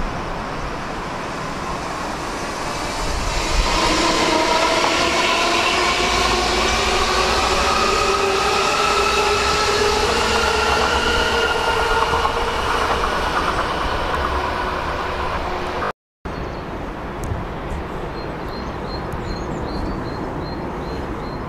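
Red DB S-Bahn electric multiple unit running alongside the platform, its traction motors giving a whine of several tones that slowly rise in pitch as it gathers speed, over the rolling noise of the wheels. The sound cuts off suddenly about 16 seconds in, leaving a quieter background with a few faint high chirps near the end.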